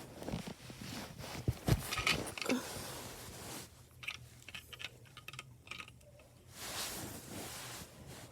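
Small toy figures and puzzle pieces being handled and set in place, with scattered light clicks and knocks and some rustling, busier in the first few seconds.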